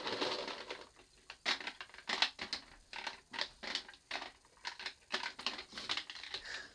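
Small plastic toy figures clicking and clattering as they are dropped into and pushed around inside a plastic gumball machine, in irregular clicks about two a second.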